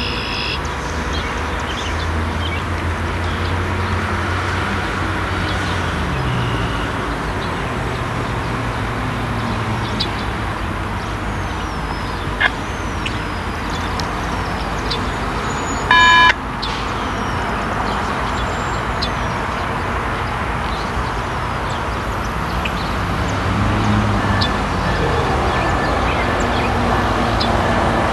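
Steady low engine rumble with a wash of vehicle noise and birds chirping. A short, loud high beep sounds once about sixteen seconds in.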